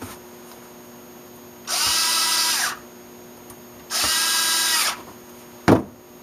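Power screwdriver running in two runs of about a second each, spinning up and down as it drives the two small screws into a Walbro carburetor's top cover. A sharp knock near the end.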